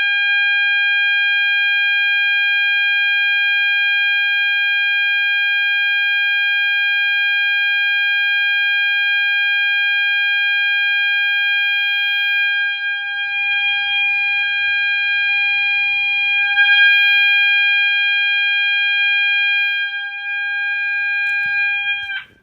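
System Sensor MA12/24D fire alarm sounder on its 800 Hz continuous tone: a loud, steady, unbroken high-pitched tone. It cuts off suddenly near the end.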